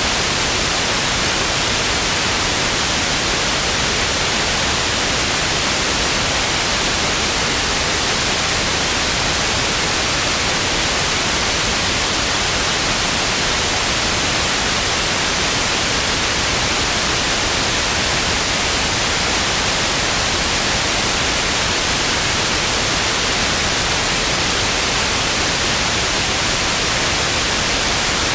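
Television static: a steady, loud hiss of white noise, strongest in the high frequencies.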